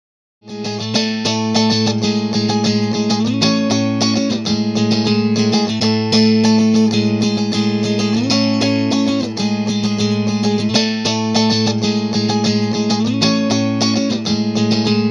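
Electric Stratocaster guitar played through an amplifier: a quick run of picked notes over a held low note, starting about half a second in after a brief silence.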